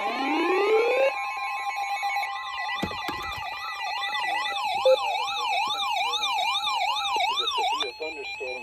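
Electronic emergency-alert siren sounds: rising wails in the first second, then a siren warbling up and down about two and a half times a second over a steady high alert tone. It cuts off abruptly shortly before the end.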